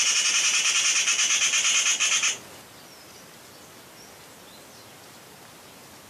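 Eurasian magpie alarm chatter, a rapid rattle of repeated notes raised at a fox, stopping abruptly about two seconds in. After it only a faint steady hiss remains, with a couple of faint bird chirps.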